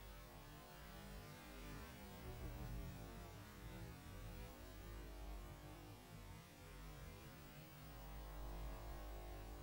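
Faint steady hiss and low hum: the static picked up on the audio track of an analogue FPV video receiver's recording.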